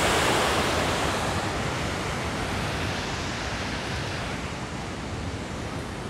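Waterfall's white water rushing in a steady, even hiss, gradually growing fainter.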